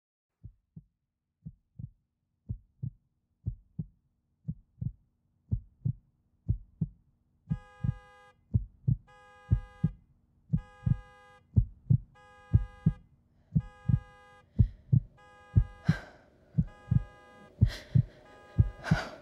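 Heartbeat sound effect: a low lub-dub thumping about once a second that grows louder. From about seven seconds in, an electronic beep sounds about once a second along with it over a faint steady hum.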